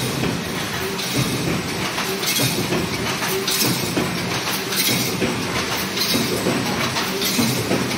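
Mechanical wire mesh welding machine for 3–6 mm wire running in production: a steady mechanical clatter with a regular welding stroke about once a second.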